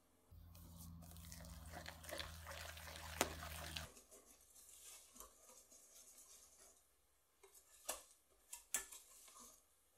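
Soft wet squelching of meringue and thick cake batter being whisked together in a glass bowl with a wire balloon whisk, with a few light clinks of the wires against the glass in the last few seconds. A low steady hum runs under the first four seconds and stops suddenly.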